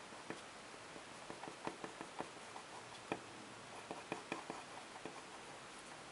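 Pen tip hatching on drawing paper: quick short strokes heard as irregular light clicks and scratches, bunched in two flurries with a single sharper tick between them, over a faint steady hiss.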